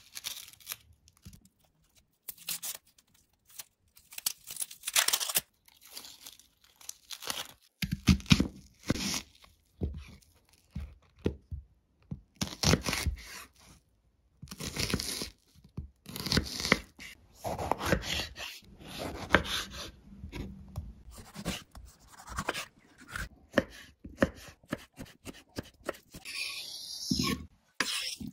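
Kitchen knife peeling and cutting an onion on a wooden cutting board: the dry skin tearing away, then uneven crisp slicing strokes and knife taps on the board.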